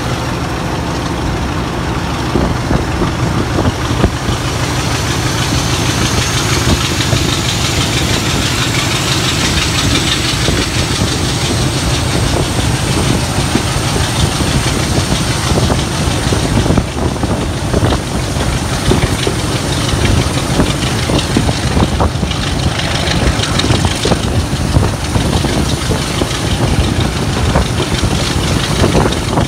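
Heritage diesel locomotive running under power, heard from an open window of the moving train, with wind on the microphone and wheels on the rails. A high whine rises over the first several seconds, then holds steady.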